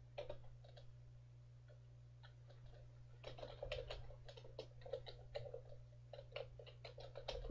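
Typing on a computer keyboard, a few scattered keystrokes and then quick runs of key clicks for about the last four seconds, over a low steady hum.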